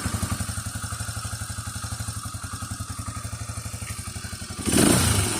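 Motorcycle engine idling with an even, rapid pulsing beat; about four and a half seconds in, a sudden louder rush of noise comes over it.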